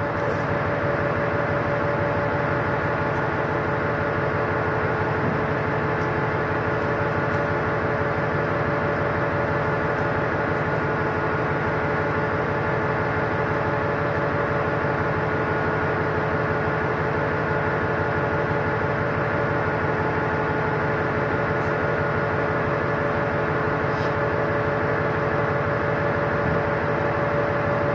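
Steady hum of a ship's onboard machinery: a broad rush with several constant tones over it.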